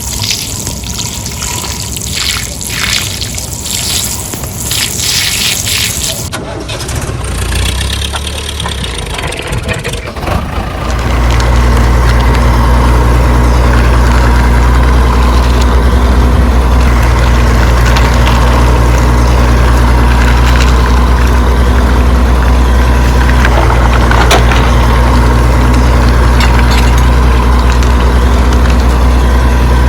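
Water splashing and spraying for the first ten seconds or so. About eleven seconds in, a loud, steady engine drone starts and runs on unchanged.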